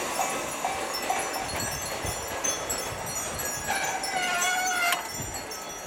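Railway level-crossing warning bell ringing about twice a second, stopping about a second and a half in, over the fading noise of a receding electric train. A single longer, wavering tone sounds about four seconds in.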